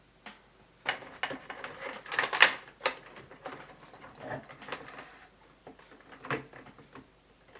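Irregular small clicks, taps and scrapes of handling as multimeter probes are fumbled against the metal pins of the Commodore 64 power brick's plug, with a few sharper clicks spread through.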